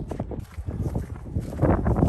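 Footsteps on a rocky shore: a run of uneven knocking steps, with a louder, denser noise coming in near the end.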